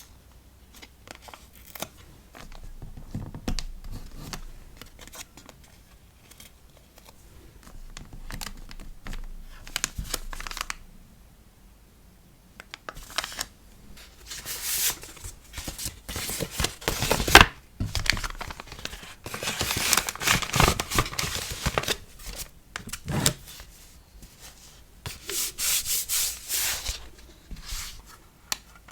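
Hand-packing a sticker order: paper and plastic packaging crinkling and rustling, with tearing noises in irregular bursts, the busiest stretch in the second half, and one sharp click about seventeen seconds in.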